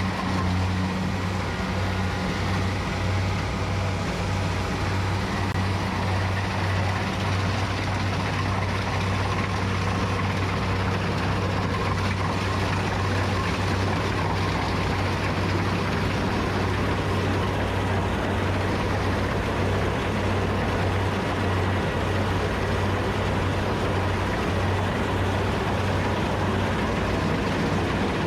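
Kubota combine harvester's engine running steadily in the rice field, a constant low drone with no pauses or changes in speed.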